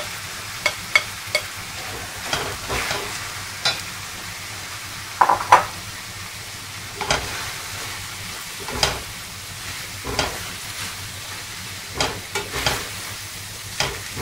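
A spoon stirring shredded chicken into a tomato-and-onion masala in a stainless steel frying pan, with irregular scrapes and knocks against the pan over a steady sizzle from the hot pan.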